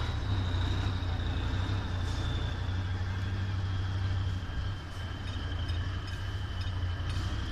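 A trial truck's engine runs under load as the truck crawls over rocks: a steady low rumble with a thin high whine above it that drifts slightly lower in pitch. It eases off a little about five seconds in.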